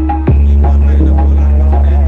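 Loud DJ remix music: a constant deep bass drone under a repeating melody, with a sharp hit about a third of a second in.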